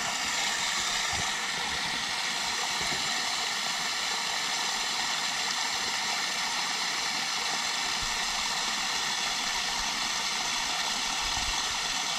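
Steady rush of running water at an even level.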